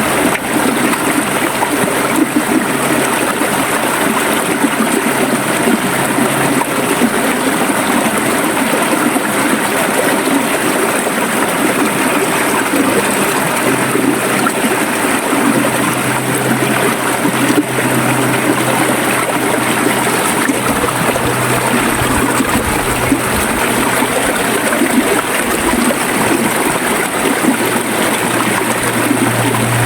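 River water flowing and gurgling steadily. A low steady hum lies underneath and grows stronger about halfway through.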